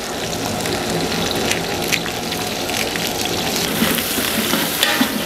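Onions and whole spices sizzling in hot coconut oil and ghee in a large aluminium pot. A ladle stirs the pot near the end.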